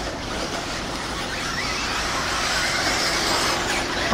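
Several 1/8-scale electric off-road buggies racing on a dirt track: a steady rush of noise, with faint electric-motor whines rising in pitch now and then as cars accelerate.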